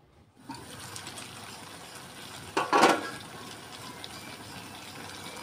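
Chop suey simmering in a wok, a steady bubbling hiss that starts about half a second in. A brief louder clatter comes near the middle.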